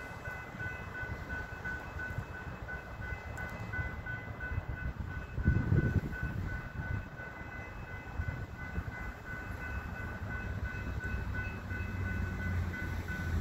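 Railroad grade-crossing bells ringing in a steady quick rhythm while a train's low rumble builds toward the end, with one low thump about halfway through.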